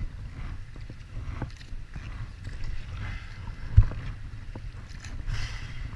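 Paddle strokes and moving river water around an inflatable kayak, over a steady low wind rumble on the microphone, with one heavy thump a little before four seconds in.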